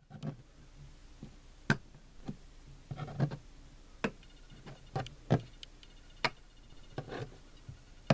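Stacks of coin tokens in clear plastic capsules being set down and shifted on a wooden tabletop: about a dozen sharp clicks and light knocks, irregularly spaced.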